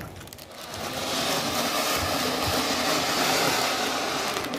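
Ground fountain firework (flowerpot) spraying sparks with a steady rushing hiss that builds up about a second in and holds.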